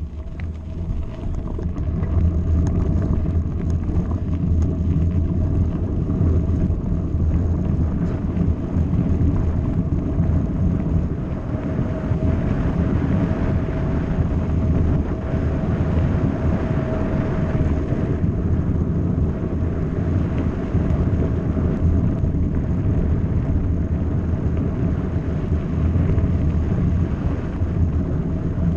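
Wind buffeting an action camera's microphone as a mountain bike rolls along a loose gravel track, the tyres crunching and rumbling over the stones, with a faint steady whine underneath.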